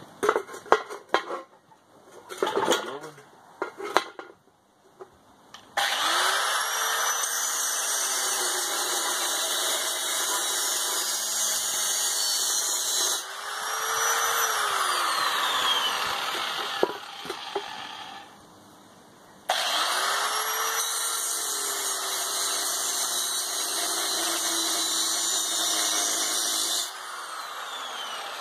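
Angle grinder cutting a hole through the side of a bucket, after a few seconds of handling knocks. It whines up to speed about six seconds in and cuts steadily, stops for a couple of seconds past the middle, starts again, and drops off near the end.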